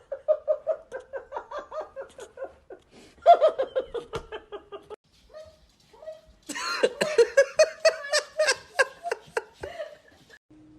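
A person laughing hard in quick, pitched ha-ha pulses, about five a second, in two bouts; the second bout is louder and ends about ten seconds in.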